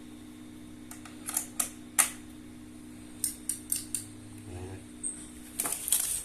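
Scattered sharp clicks and taps from hands handling and pressing the controls of a NUX MG-30 guitar multi-effects unit, over a steady low electrical hum.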